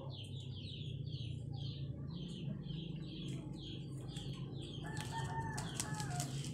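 Rapid high-pitched peeping calls from a young animal, about three a second, over a steady low hum. About five seconds in the peeping stops, a plastic tarp crinkles and there is a short call.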